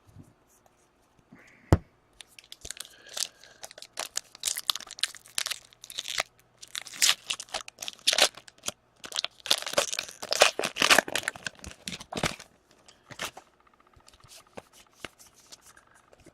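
Foil wrapper of a hockey card pack being torn open and crinkled, a sharp snap about two seconds in and then a long run of crackling, quieter near the end.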